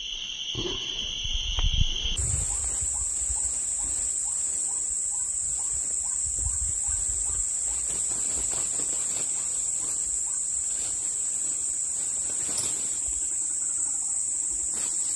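Steady high-pitched insect drone. A lower buzzing tone stops about two seconds in, just as a higher, louder one starts. A low rumble comes and goes underneath.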